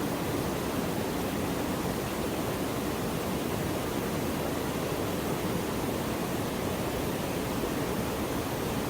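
Steady rushing of a waterfall, an even noise with no breaks.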